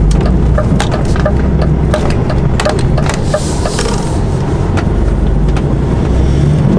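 Lorry engine running steadily in the cab during a turn out of a junction, with the indicator relay ticking about three times a second. A car's tyres hiss past about three to four seconds in.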